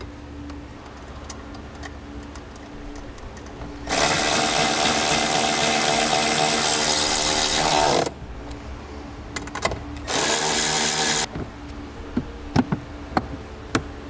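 Cordless electric ratchet running twice, about four seconds and then about a second, driving in the fasteners of a lower dash panel as it is put back. Light clicks and knocks of the plastic trim come between the runs.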